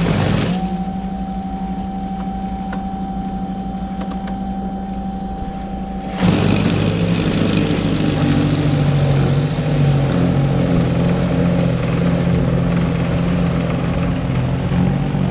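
Snow blower running steadily with a fixed hum. About six seconds in it turns suddenly louder and rougher, with a wavering pitch, as it works through packed, icy snow.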